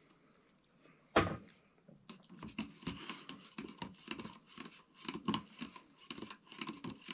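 A plastic spoon stirring hot instant coffee in a thick plastic cup, making quick clicks and scrapes against the cup wall, a few a second, starting about two seconds in. Just before that, a single knock about a second in as the metal kettle is set down.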